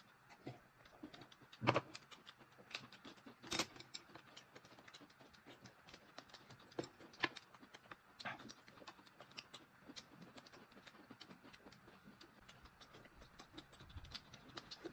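Quiet eating at a table: scattered light clicks and taps of utensils against bowls and dishes, a few sharper knocks among them.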